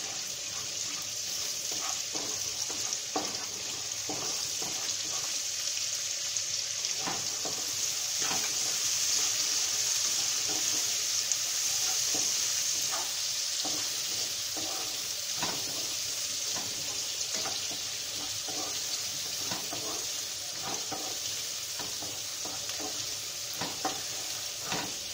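Chopped onion, urad dal, curry leaves and dried red chillies sizzling steadily in hot oil in a nonstick kadai, with a wooden spatula scraping and tapping against the pan as they are stirred and roasted.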